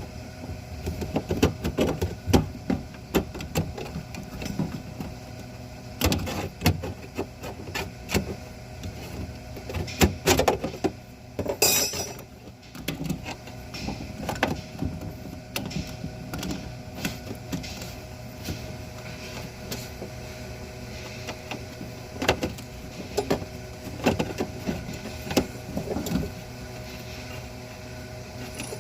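Scattered clicks and knocks, irregular and sometimes close together, over a steady low hum: the handling noises of hands, tools and parts at work.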